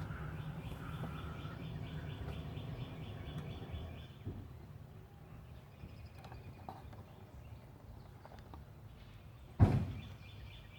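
Low rumble that fades about four seconds in, with faint rapid rhythmic chirping over it, then one sharp thump near the end.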